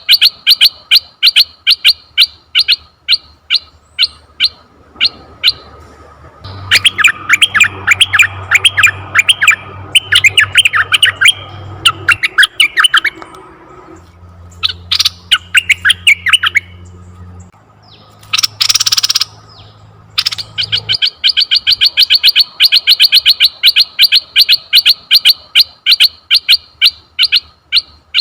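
Asian red-eyed bulbul calling: fast runs of short, sharp chirps at about five a second open and close the passage. In between come phrases of quick rising and falling notes and a brief harsh, rasping call about two-thirds of the way through.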